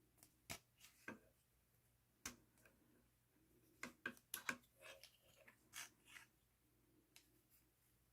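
Scattered sharp clicks and taps of hard plastic pieces of a child-safety cabinet lock being handled and fitted together, with a quick run of clicks about four seconds in.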